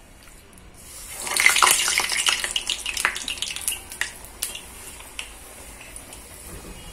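A medu vada of urad dal batter dropped into hot oil in a kadai, frying with a burst of loud, dense sizzling and crackling about a second in that settles after a few seconds to a quieter sizzle with scattered pops.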